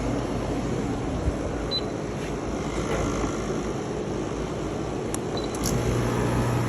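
PTAC air-conditioner unit running with a loud noise and a steady low hum: its evaporator blower wheel is broken and displaced from the motor, bouncing instead of spinning. The hum grows louder near the end.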